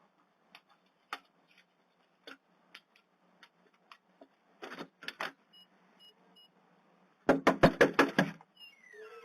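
Scattered light clicks and taps, then a rapid run of about eight loud knocks or bangs packed into one second, followed by a short rising tone.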